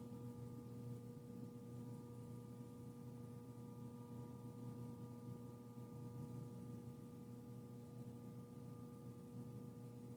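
Faint steady hum made of several held tones at once, unchanging throughout.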